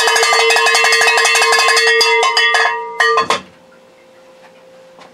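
A metal bell rung rapidly, about a dozen strikes a second, for roughly two and a half seconds, then one short last burst before it cuts off.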